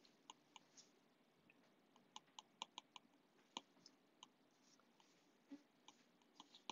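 Faint, irregular clicks of a stylus tip tapping on a tablet's glass screen while handwriting, with short pauses between strokes.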